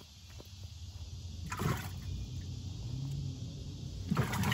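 Water splashing in a fish cooler as a caught bream is put in: two short splashes, about a second and a half in and again near the end, over a low steady rumble.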